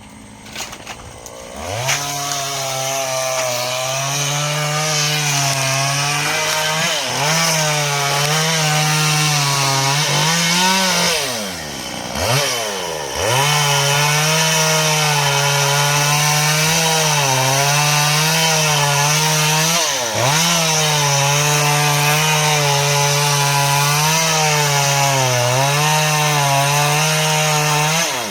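Two-stroke chainsaw revving up about two seconds in and running at full throttle cutting into a coconut palm trunk, its pitch wavering under load. The revs drop and pick up again near the middle and once more about two-thirds through.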